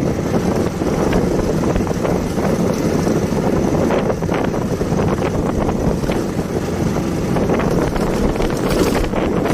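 Wind buffeting the microphone on a moving motorcycle at about 35 km/h, a steady rush with the engine and road noise underneath.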